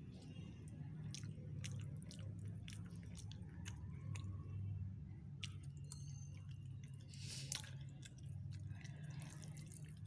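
Eating rice by hand from a steel plate: scattered small wet clicks and squishes of rice being mixed and chewed, over a steady low hum.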